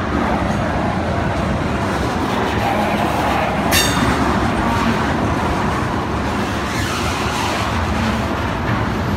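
Freight train of tank cars rolling past at close range: steady noise of steel wheels on the rails, with one sharp click about four seconds in.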